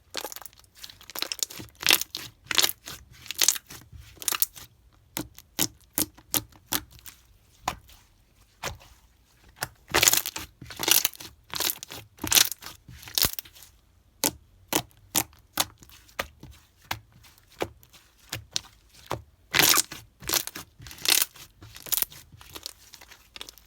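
Slime being squeezed, stretched and pressed by hand, giving short crackling, crunchy pops about once or twice a second, with denser bursts of crackles around the middle and near the end.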